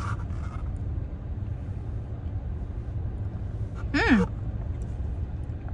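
Steady low rumble inside a car's cabin. About four seconds in, a woman makes one short voiced sound that falls in pitch.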